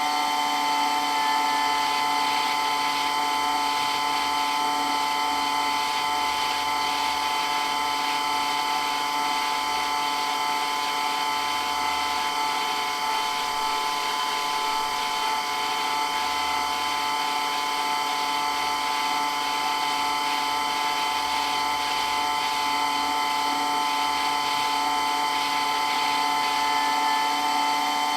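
Water pump of a water blaster running with a loud, steady whine at an unchanging pitch.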